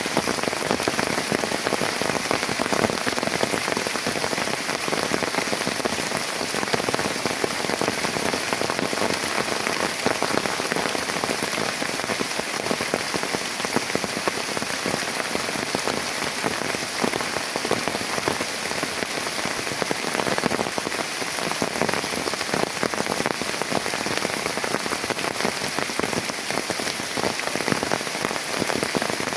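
Heavy rain falling steadily, a dense, even hiss of many drops with no let-up.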